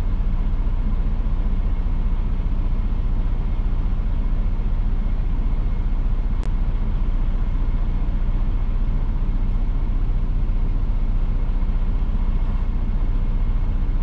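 Semi truck's diesel engine idling, a steady low rumble heard inside the cab. One sharp click about six and a half seconds in.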